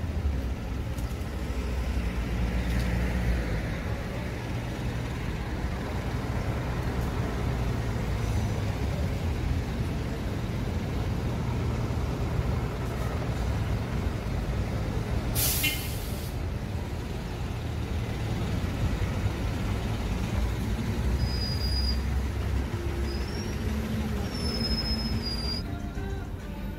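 A large vehicle's engine rumbling steadily in street traffic, with one loud, short air hiss about halfway through, like a bus or truck releasing its air brakes. A few short high chirps come near the end.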